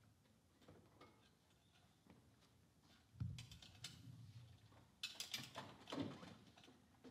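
Small metal tools and engine parts being handled on a workbench: a soft thump about three seconds in, then a cluster of light metallic clicks and clinks a couple of seconds later.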